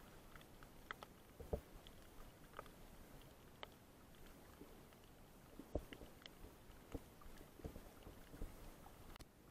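Faint, muffled underwater sound picked up through an action camera's waterproof housing: a low steady hiss with irregular soft clicks and knocks, the loudest about one and a half seconds in and again near six seconds.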